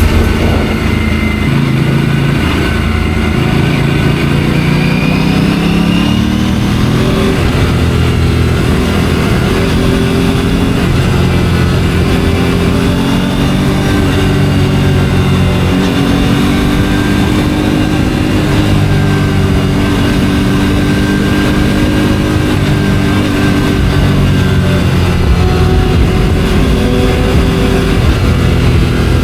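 A stock Aprilia RS 457's parallel-twin engine pulling under way, picked up from a helmet chin mount. It rises in pitch over the first several seconds, then holds a fairly steady cruise with small changes in revs.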